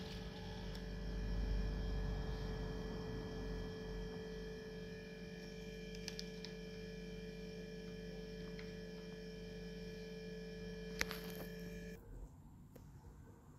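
Model electric locomotive (Roco HO-scale BR185) running with its freight train: a steady motor hum with the rumble of wheels on track, a sharp click about eleven seconds in, then the hum cuts off suddenly about a second later.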